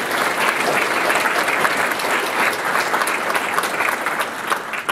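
A room full of people applauding, many hands clapping together, the clapping dying away near the end.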